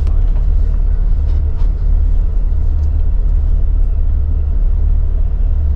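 Intercity coach engine running with a steady low rumble, heard from inside the bus.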